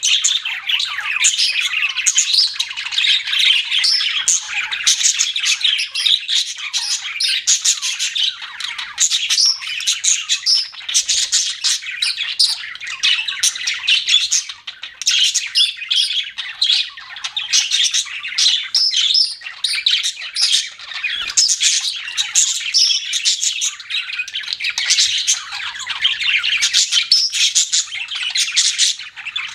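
A group of budgerigars chirping and squawking, many quick calls overlapping without a break, with a brief lull about halfway through.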